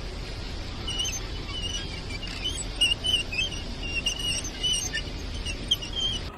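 A car on the move with a steady road and engine hum, over which a high, chirping squeak repeats irregularly, a couple of times a second, from about a second in. This is the whistle-like noise reported when turning left.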